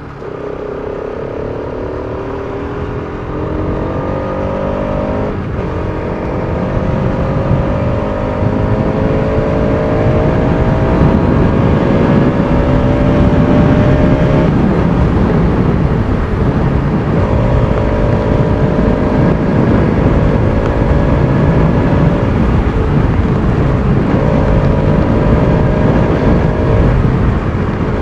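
Bajaj Pulsar RS200's single-cylinder engine pulling through the gears, its pitch climbing steadily in each gear and dropping at upshifts about 3 and 5 seconds in. It then holds a higher speed, the pitch dipping and picking up again several times as the throttle is eased and reopened, with wind rush growing as the bike speeds up.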